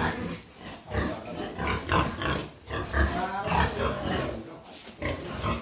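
Pigs grunting in a run of short calls, one of them higher and drawn out about three seconds in.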